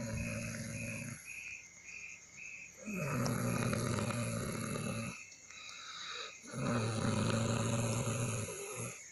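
A person snoring heavily: long, rumbling snores about two seconds each, coming roughly every three and a half seconds. The snoring is grating, likened to a grinder running out of oil.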